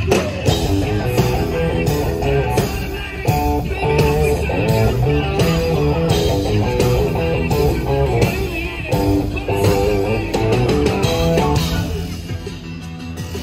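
A live rock band plays an instrumental passage without vocals: an electric guitar riff over drums and bass, a little quieter near the end.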